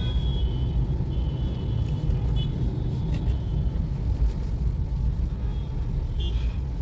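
Steady low road and tyre rumble heard inside the cabin of a 2013 Toyota Aqua hybrid as it slows in traffic, with a few faint short high tones now and then.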